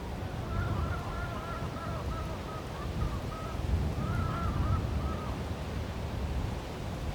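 Strong wind rumbling and buffeting the microphone. A bird calls over it in a rapid series of short, wavering notes from about half a second in until about five seconds in.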